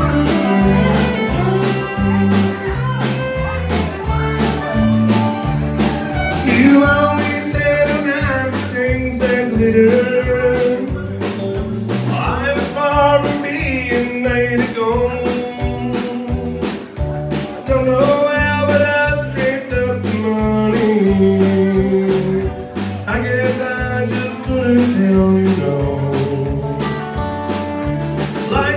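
Live country band playing with a steady drum beat, guitars, bass and fiddle.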